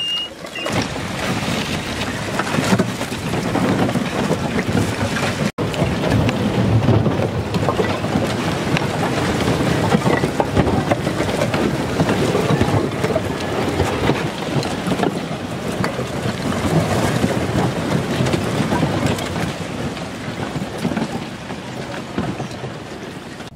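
Broken lake-ice slabs shifting and grinding against each other in the water: a dense, steady crackling and clinking. The sound cuts out for an instant about five and a half seconds in.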